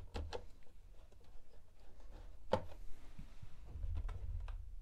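Wires being handled and fed through a plastic case: faint scattered clicks and rustles, with one sharper click about halfway through, over a low rumble.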